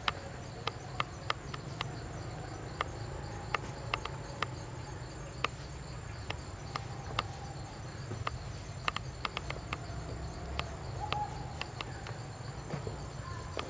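Outdoor woodland ambience: a steady high-pitched insect buzz over a low rumble, with irregular sharp clicks about once a second and a few faint distant calls.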